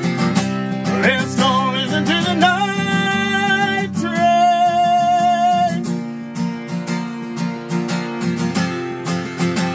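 Acoustic guitar strummed steadily. A man's wordless voice slides up about a second in and holds two long notes, the second higher and steadier, ending about six seconds in.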